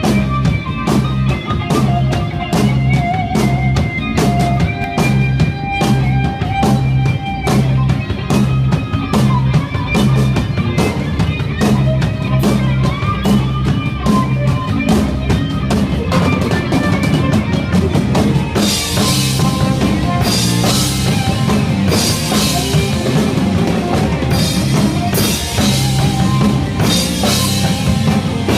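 Rock band playing live with the drum kit up front, as heard from the stage through the monitor mix: a steady beat over bass and melodic keyboard or guitar lines. About 18 seconds in, a wash of cymbals joins.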